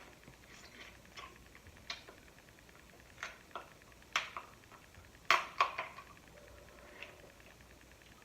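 Crab shells being cracked and picked apart by hand: a scatter of sharp clicks and snaps, the loudest pair about five seconds in.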